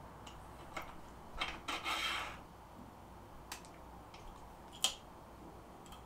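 Light clicks and a brief rubbing scrape about two seconds in from an Avid SD7 brake lever and its cable being fitted to a bike's handlebar, with one sharper click about five seconds in.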